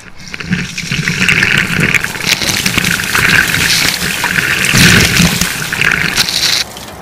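A bucket of ice water poured over a man's head, splashing loudly for about six seconds and then stopping abruptly near the end.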